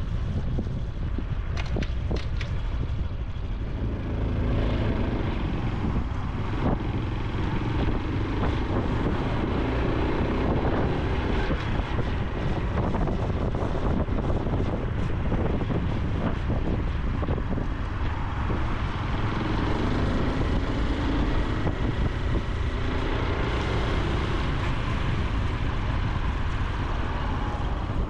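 Honda Super Cub C125's single-cylinder four-stroke engine and exhaust running while riding, its note rising and falling with the throttle, with wind rushing over the microphone.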